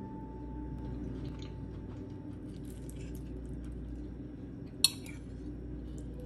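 A metal fork working through a soft baked broccoli, egg and cheese casserole, with faint small ticks and soft sounds, then one sharp clink against the ceramic plate just before five seconds in.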